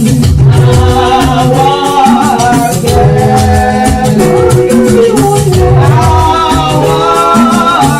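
Church praise music: voices singing a melody over strong bass and a steady rhythm of shakers.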